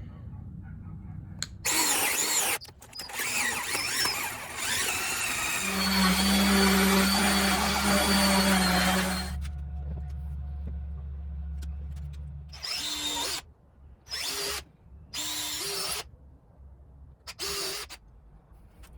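Power drill working into wood in bursts: a short run, then one long run of several seconds with a steady motor hum, then four short trigger pulls near the end.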